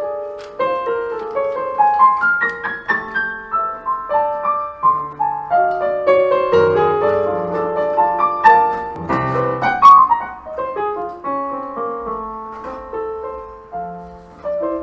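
Digital keyboard with a piano sound playing a solo jazz introduction: chords under quick melodic runs, busiest around the middle and thinning out near the end.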